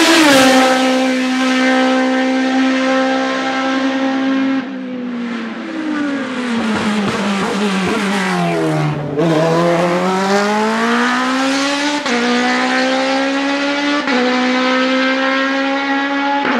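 Suzuki Hayabusa inline-four motorcycle engine in a Gloria C8P racing prototype at high revs on a hillclimb. The revs hold, then fall steadily for about four seconds from about five seconds in as it slows for a bend, and climb again hard, with two quick gear changes near the end.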